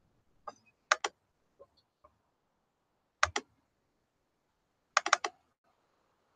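Computer mouse clicking: a pair of sharp clicks about a second in, another pair about three seconds in, and a quick run of three or four clicks near the end.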